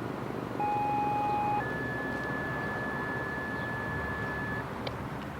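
Two-tone sequential dispatch pager tones: a steady tone lasting about a second starts about half a second in, then a higher steady tone holds for about three seconds and stops near the end, over steady background rumble. The tones page out an emergency call.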